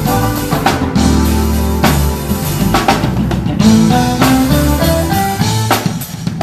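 A band playing, with a drum kit's bass drum and snare hits over held pitched notes and a bass line.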